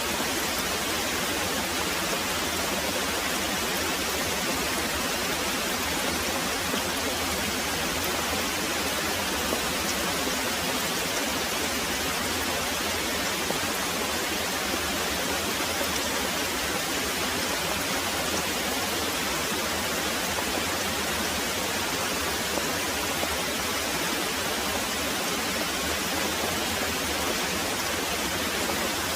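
Heavy rain pouring steadily, an even unbroken hiss of downpour.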